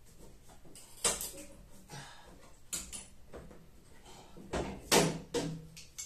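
Sharp knocks and clatter of tools being handled against a tumble dryer's bent sheet-metal top as vice grips and a wooden block are set up to straighten it. About five knocks, the loudest about a second in and near the end.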